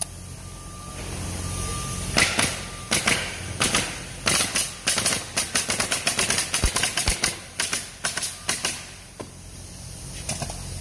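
Pneumatic coil nail guns driving nails into wooden pallet boards: a run of sharp shots, a few a second, starting about two seconds in and stopping near the end.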